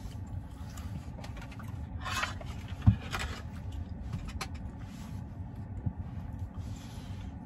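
Small lidded takeout steak-sauce container being handled and opened: light rustling and small clicks, with one sharp snap about three seconds in, over a steady low rumble.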